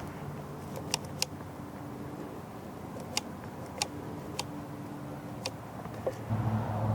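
A faint low engine-like hum with a few sharp clicks scattered through; the hum grows louder about six seconds in.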